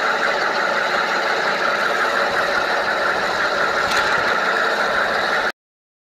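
G scale model train running on its track, heard from a camera riding on the train: a steady mechanical rolling noise that cuts off abruptly about five and a half seconds in.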